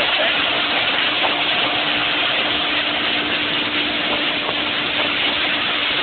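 Speedboat engine running at a steady drone under a constant rush of water and wind.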